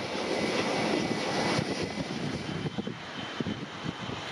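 ATR 72-600 turboprop rolling along a wet runway after landing: engine and propeller noise with a steady whine. About two seconds in, this gives way to a Cessna 510 Citation Mustang light twin-jet on approach, its engines whining at a higher pitch.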